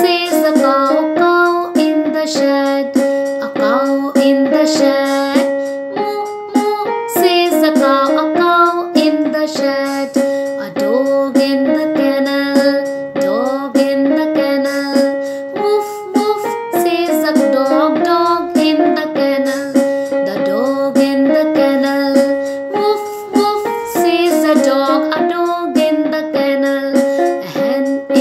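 A woman singing a children's rhyme about animals over instrumental backing music with a stepping melody.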